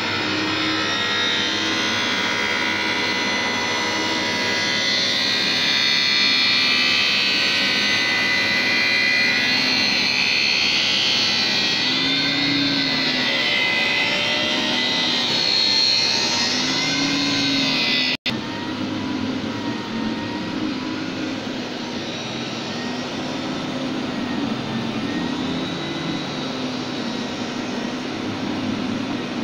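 Automatic optical lens edger grinding a bifocal spectacle lens at the roughing stage, its wheel spinning under water spray. A loud steady whine and hiss wavers up and down in pitch as the lens turns against the wheel. It cuts out for an instant about 18 seconds in, then carries on slightly quieter.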